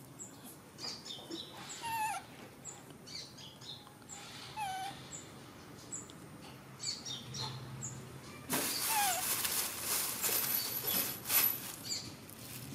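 A young monkey giving short squeaks that slide down in pitch, about two seconds in, again near five seconds and once more a little after eight seconds, with small birds chirping in the background. From about eight and a half seconds there are a few seconds of loud rustling noise.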